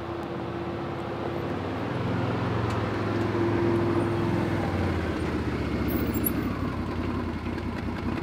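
Side-by-side UTV engine running as it drives, its pitch and level rising about two seconds in.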